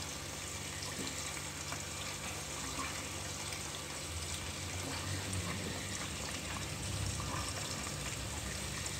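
Food frying in oil in the inner pot of an electric rice cooker: a steady sizzle with faint small crackles.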